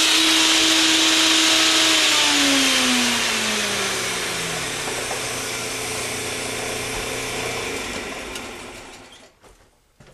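Homemade router-lathe rig being shut down: its steady whine slides down in pitch over about three seconds as it coasts to a stop, and the remaining motor noise fades away near the end.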